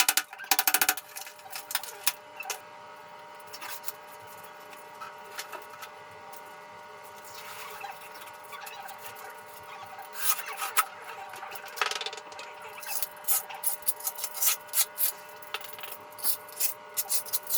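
Old tile adhesive being scraped off a bathroom surface by hand: a few loud scrapes at the start, scattered strokes, then a quick run of short rasping scrapes in the last few seconds.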